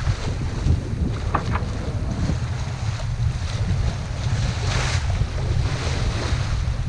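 Wind buffeting the microphone in a heavy low rumble over the rush and splash of a sailboat's bow wave cutting through the sea.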